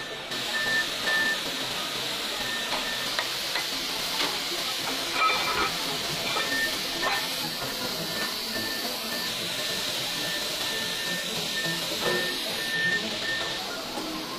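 Foundry floor noise: a steady hissing rush of machinery, with a high pulsing beep coming and going and a few scattered metallic knocks.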